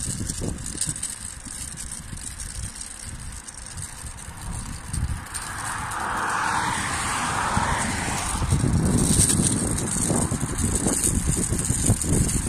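Wind buffeting the microphone over the rolling noise of cross skates running fast down an asphalt road. A car passes in the opposite lane about midway, and the wind rumble grows louder after that.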